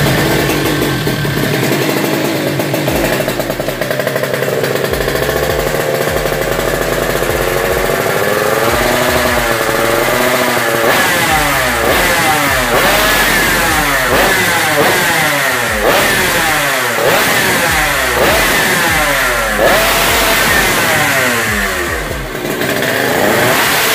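Suzuki Satria Hiu two-stroke underbone engine with an LSCM racing exhaust, idling with a wavering pitch. From about halfway it is blipped again and again, about once a second, each rev rising sharply and dropping back.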